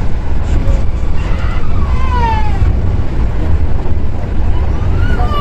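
Steady low rumble of an Osaka Monorail train running on its rubber tyres along the concrete guideway beam, heard inside the car. About two seconds in, a short sound falls in pitch, like a child's voice.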